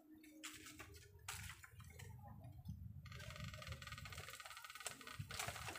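Faint crackling and scattered snaps of dry bamboo stalks and leaves as a man pushes and struggles inside a bamboo clump, over a low rumble.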